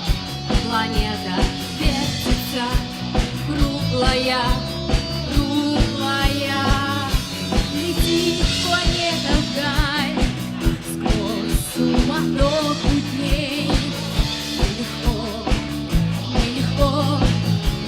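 Rock band music: a drum kit keeps a steady beat under guitars, with a wavering lead melody over them.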